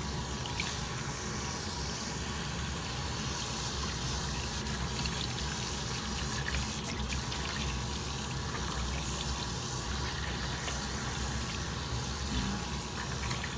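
Water running steadily from a tap while a kitten is rinsed under it.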